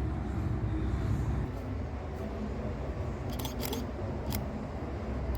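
Steady low rumble of a car sitting with its engine running, with a handful of sharp camera-shutter clicks about three and a half to four and a half seconds in.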